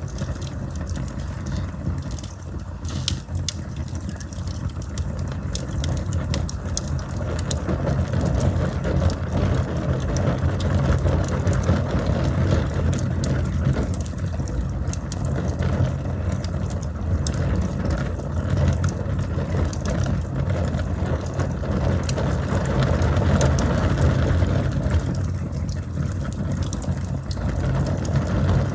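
Campfire burning: a steady low rumble of flames with frequent crackles and pops from the burning wood.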